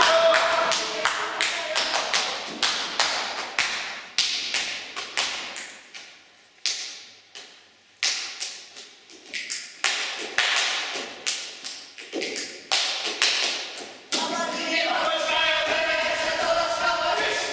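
Barefoot folk dancers stamping and slapping on a stage, making sharp, irregular percussive hits that echo in the hall, sparser in the middle. Group voices chant or sing from about three-quarters of the way through.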